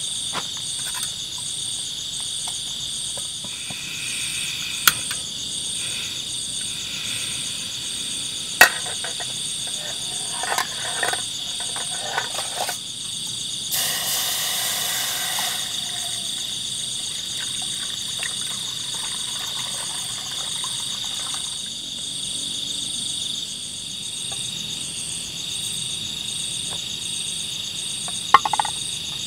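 Insect chorus in the forest: a steady high shrill with a faster, regularly pulsing trill above it. A few sharp clicks and, about halfway, a short hiss.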